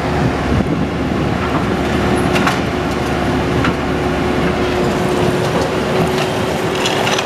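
Heavy demolition machinery running steadily, its engine noise carrying a constant whine, with a few sharp metallic knocks and clanks.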